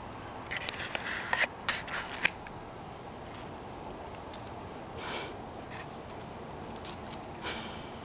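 A cicada on asphalt fluttering and buzzing in short crackling bursts as a dog pokes at it with its nose: a quick cluster of clicks and scrapes in the first couple of seconds, then a few brief bursts later.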